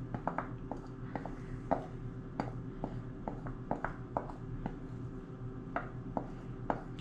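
Spatula scraping and tapping against a glass mixing bowl, a string of light irregular clicks, as melted chocolate, peanut butter and butter are scraped out onto cereal. A faint steady hum underneath.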